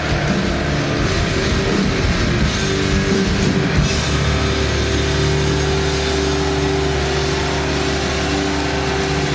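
Heavy metal band playing live through a loud PA, with distorted electric guitars, bass and drums. About four seconds in, the busy playing gives way to a steady, held chord from the amplified guitars and bass.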